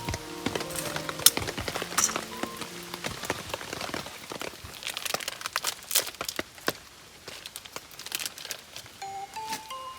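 Rain falling, with many separate drops ticking and tapping irregularly. Background music fades out in the first couple of seconds and comes back near the end.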